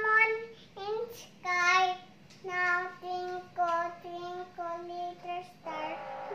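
A young girl singing a simple tune as a run of short, evenly held notes, about two a second, without clear words. Near the end a woman's voice comes in.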